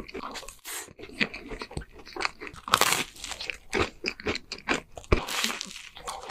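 Close-miked crunching and chewing of a cream-filled waffle, with irregular crisp crackles and a loud crunchy bite about three seconds in.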